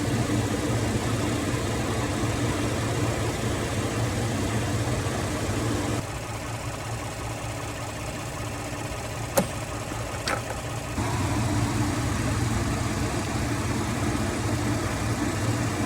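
Ford F-150 pickup engine idling steadily, a little quieter from about six to eleven seconds in, with a sharp click about nine seconds in and a short falling squeak a second later.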